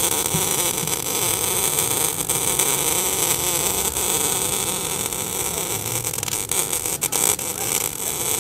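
MIG welding arc running a continuous bead, a steady hiss with scattered crackles.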